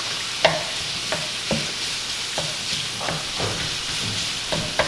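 Crumbled pork sausage sizzling in a skillet on a gas stove, under a steady hiss. A wooden spoon scrapes and taps against the pan every half second or so as it breaks up the meat.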